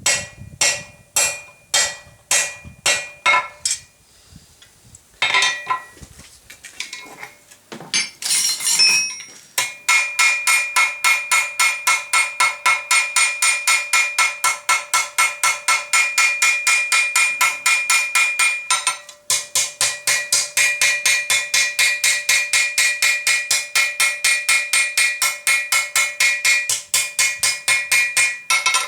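Blacksmith's hand hammer striking hot flat-bar steel on an anvil, each blow ringing. Some spaced blows come first, then from about ten seconds in a fast steady run of about three blows a second, broken once briefly. This is the thumb-latch end of a Suffolk latch handle blank being spread and thinned.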